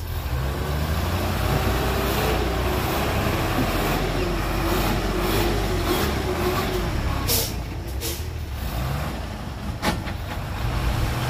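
Hyundai dump truck's diesel engine running while its hydraulic hoist raises the loaded bed to tip soil. Two brief sharp noises stand out, about seven and ten seconds in.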